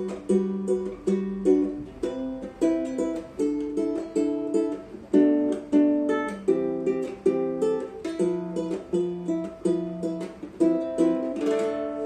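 Custom nylon-string mini guitar fingerpicked: a melody of plucked notes over lower bass notes, each note struck and left to ring out.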